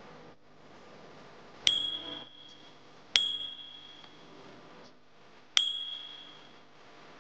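A bell rung three times, the third after a longer gap, each a single high ring that fades within about a second. The chime signals that the config password is being shown.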